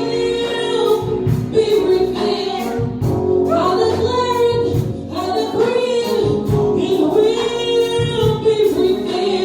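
Gospel worship song: singing voices holding long notes with vibrato over sustained chords and a steady drum beat.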